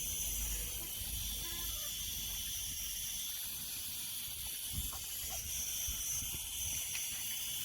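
A steady, high-pitched hiss, with a few faint knocks.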